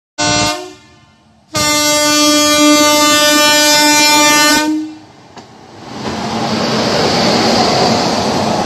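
Indian Railways electric locomotive horn: a short blast, then a long steady blast of about three seconds. From about six seconds in, the loud rushing noise of the train running past.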